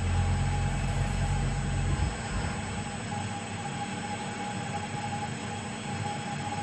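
CNC mill's axis drives running during an automatic probing cycle on a rotary table: a steady whine with a low hum that drops away about two seconds in.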